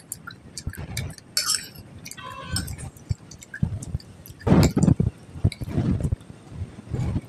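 Metal spoon clinking and scraping on a glass plate, with a short ringing clink about two seconds in. Close-up chewing and wet mouth sounds follow, loudest about halfway through.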